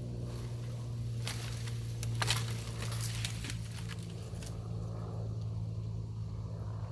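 An engine running steadily at idle, a low, even hum, with a few sharp crackles and snaps of brush or footsteps about a second to two and a half seconds in.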